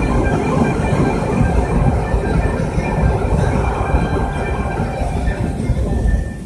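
Steady road rumble and tyre noise inside a moving car's cabin, heaviest in the low end, easing off a little near the end.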